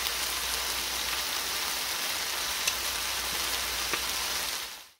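Sliced potatoes, onions, peppers and sausage sizzling in oil in an electric skillet: a steady hiss with a few sharp pops.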